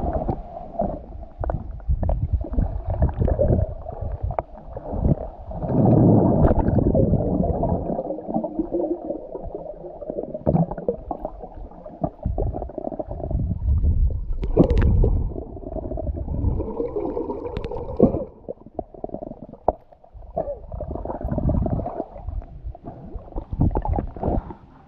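Water heard through a submerged camera: muffled sloshing and gurgling, with scattered knocks and bumps as people move through the water.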